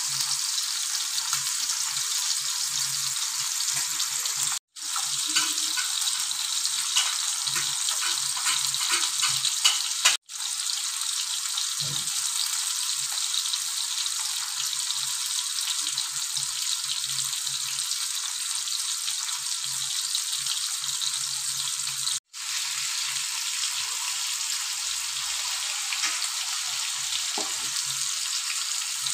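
Masala-coated fish pieces shallow-frying in oil on a tawa: a steady sizzling hiss. It cuts out briefly three times.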